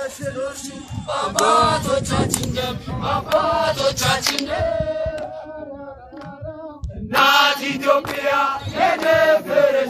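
A group of men and women singing a patriotic Amharic chant-song together, with a short break about seven seconds in before the singing comes back louder.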